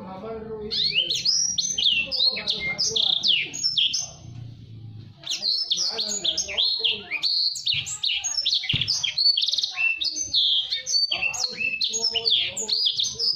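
Blacksang, a blackthroat × sanger hybrid songbird, singing fast and tightly packed: rapid sweeping chirps and trills with a brief lull about four seconds in, then a dense run again.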